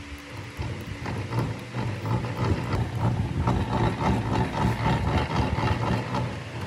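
Cast-iron bevel gears, lifting screws and shaft of an old rolling planer's table-raising mechanism clattering as its handwheel is spun by hand, the gears freshly sprayed with lubricant. A fast rattle of clicks and a low rumble, getting louder about two seconds in.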